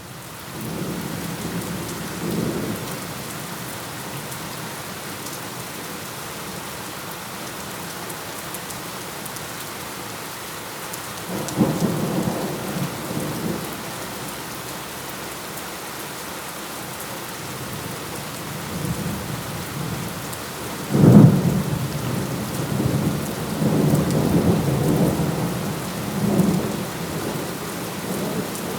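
Steady rain with rolling thunder, starting out of silence. Low rumbles come and go, and a loud, sharp thunderclap about two-thirds of the way through is the loudest moment, followed by more rumbling.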